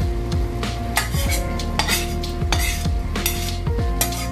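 Flat steel spatula stirring prawns into a masala in a non-stick pot, scraping and clinking against the pot about twice a second, with a light sizzle underneath.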